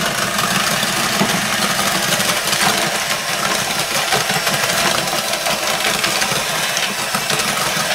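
Electric hand mixer running steadily, its twin beaters churning flour into creamed margarine and sugar in a plastic bowl, with a fine rattle.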